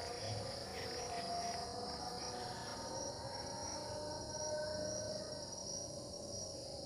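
A steady, high-pitched chorus of crickets or other insects chirring in a banana plantation, with faint wavering lower tones beneath it.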